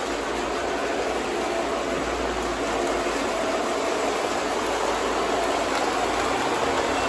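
Several Lionel O gauge toy trains running at once on tinplate three-rail track: a steady whir of electric motors and wheels on the rails.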